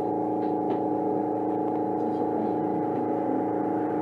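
Tama Toshi Monorail 1000 series train running at a steady speed, its traction equipment giving a steady hum of several tones that neither rises nor falls.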